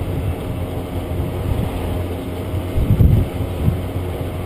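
Scooter engine running steadily while riding, with wind on the microphone. A brief low thump comes about three seconds in.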